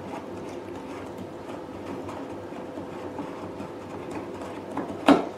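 Small handling clicks of a plastic waste-water filter fitting being worked by hand on a hydrodermabrasion facial machine, over a steady low background noise, with one sharp knock near the end.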